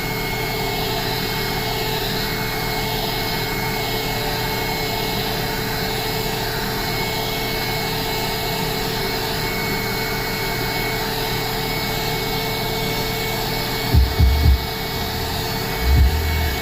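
Electric heat gun running steadily, blowing hot air onto the back of an iPhone to soften the battery's adhesive pull tabs. A few low thumps come in near the end.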